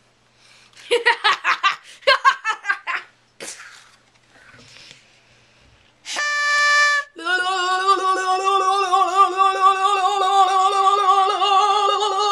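A man making odd vocal noises: quick choppy laughing sounds, then a short, steady high note, then a long wavering held note that starts to rise near the end.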